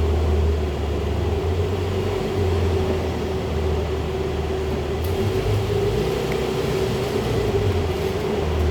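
Steady low mechanical drone with a constant hum above it.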